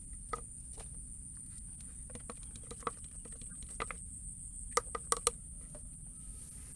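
Water dripping and plinking from a fine-mesh net dipped in a bucket of water: irregular small drips, with a few louder ones a little after halfway.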